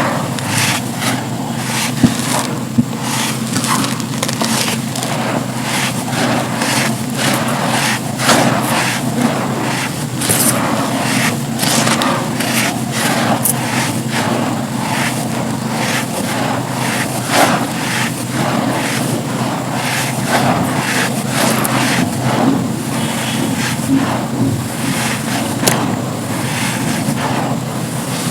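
Dry black sand slabs being crumbled and crushed by hand, a dense run of crisp crunches and crackles, with two sharper snaps about two and three seconds in.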